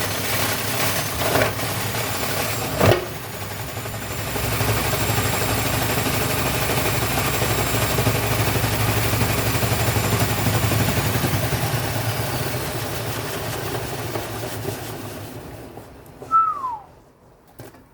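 Vestel washing machine spinning: two knocks from the drum in the first three seconds, then a steady motor whine and hum that hold for several seconds and fade away as the drum slows and stops near the end.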